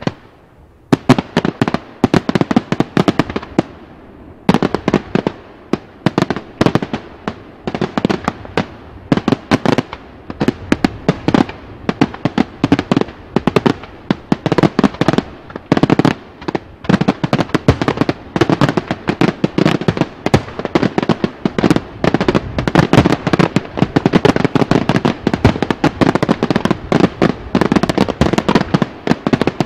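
Daytime aerial fireworks: a rapid barrage of loud shell bangs that starts about a second in after a brief lull and grows denser toward the end, many reports a second.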